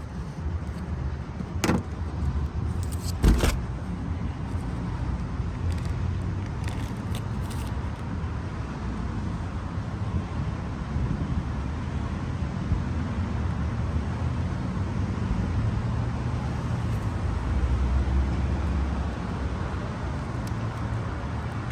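Steady low rumble and hiss of background noise, with a few sharp clicks and knocks in the first several seconds.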